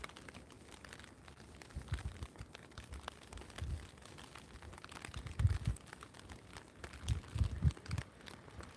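Rain pattering on a clear plastic umbrella overhead, a dense crackle of small drop ticks on the canopy. Soft low thumps come every second or two, strongest about halfway through and again near the end.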